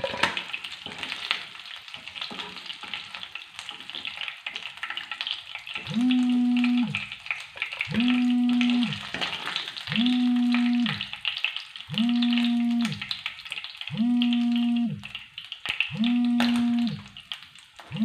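Chicken shallow-frying in butter and sunflower oil, sizzling, with the sizzle strongest for the first six seconds. From about six seconds in, a low steady tone sounds for about a second every two seconds, louder than the sizzle.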